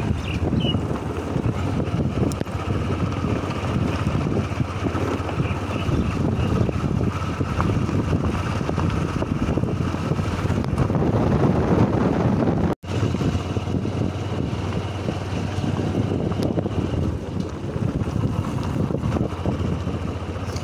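A vehicle's engine running steadily with wind rushing over the microphone while riding along. The sound cuts out for an instant about two-thirds of the way through.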